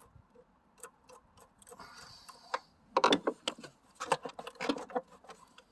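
Hand work on parts under a pickup's hood: faint, evenly spaced ticking at about three a second, then from about three seconds in a run of loud knocks and clatter as a part is worked loose and pulled out.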